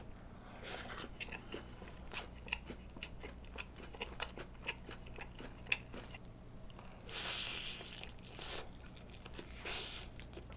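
Close-miked chewing and crunching of a fried cheese ball: a run of short crisp crunches and mouth clicks, with a brief louder rustling noise about seven seconds in.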